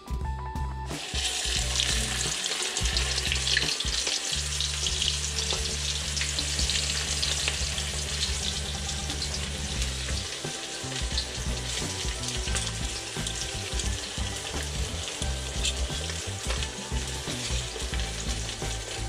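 Flour-coated whole kole deep-frying in hot oil in a wok: a loud, steady sizzle that starts suddenly about a second in as the fish goes into the oil.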